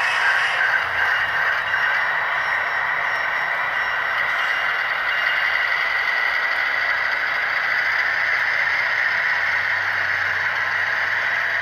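HO-scale model RoadRailer train rolling past on the layout track: a steady rattle and clatter of the small wheels running over the rails.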